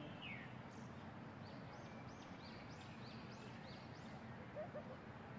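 Faint bird chirping: a run of short, high, arched chirps, about two to three a second, over a low steady hiss.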